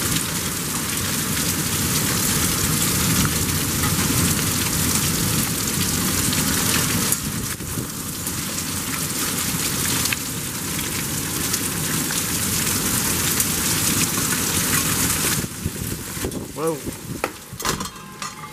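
Torrential thunderstorm rain pouring down and spattering on the ground and vehicles, a dense steady hiss with fine patter. About three seconds before the end the rain noise drops and a brief wavering tone is heard.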